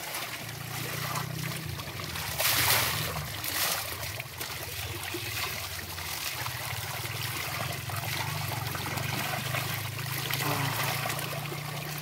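Water pouring steadily from a pipe spout into a shallow muddy pool and a plastic basin, with splashing as a person rinses her face and body under the stream. Louder splashes come about two and a half seconds in and again a second later.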